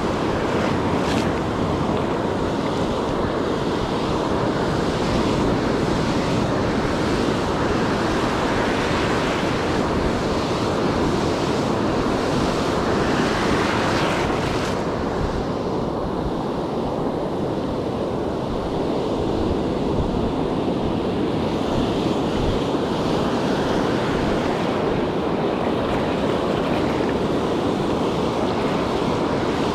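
Ocean surf breaking and washing up the beach in a steady wash, with wind buffeting the microphone.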